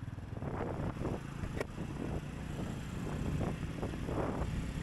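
Honda Super Cub's small single-cylinder four-stroke engine running as the bike is ridden away and picks up speed, its pitch rising with the throttle, with wind buffeting the microphone.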